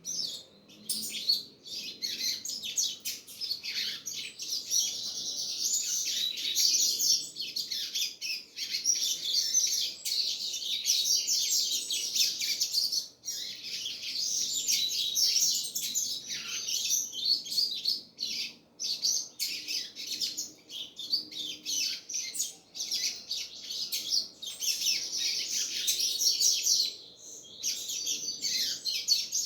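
Double-collared seedeater (coleiro) singing: long runs of rapid, high chirping notes, broken by short pauses a few times.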